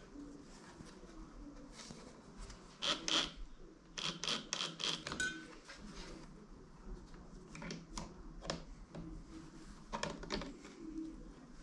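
Scattered clicks, taps and knocks of small parts and hand tools being handled, with a quick run of clicks about three to five seconds in and a brief high ping just after.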